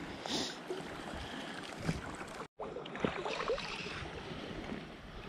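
Wind buffeting the microphone over flowing river water, an even rushing hiss with a few light knocks. The sound drops out for a moment about halfway through.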